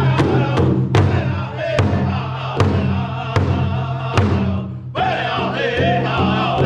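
Powwow drum group: several men beat a large shared hide drum in a steady unison beat while singing together in high voices. Just before five seconds in the singing breaks off briefly, then the voices come back in loudly.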